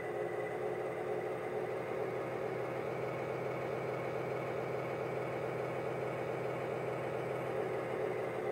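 Digitrax N-scale sound decoder playing its GE GEVO diesel locomotive engine sound through a speaker, running steadily with no change in pitch.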